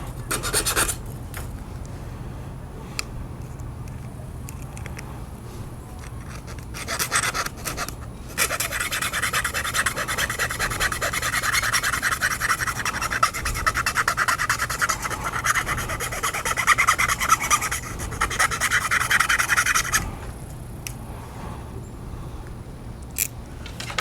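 Rapid rasping strokes of a file working through a fishing rod's tip-top guide to remove it from the rod blank: a short rasp near the start, another about seven seconds in, then about twelve seconds of fast continuous filing that stops near the end.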